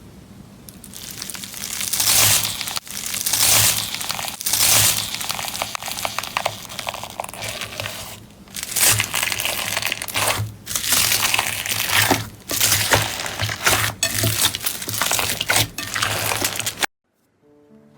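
Slime being squeezed and pressed by hand, a dense run of small crackles that swells and eases in waves and cuts off abruptly near the end.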